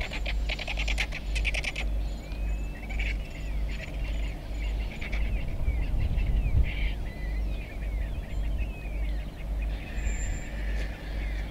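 Small birds chirping in the bush, many short rising and falling calls, over a steady low rumble. A quick rattling run of clicks comes in the first two seconds, and the rumble swells briefly about six seconds in.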